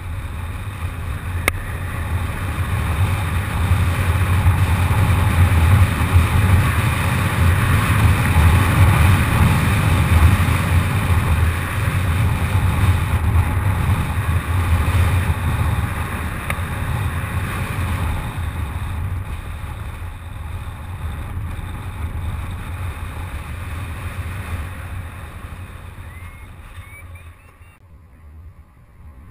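Wind rushing over the microphone of a paraglider pilot's camera in flight, a steady low rumbling rush. It builds over the first few seconds and fades toward the end.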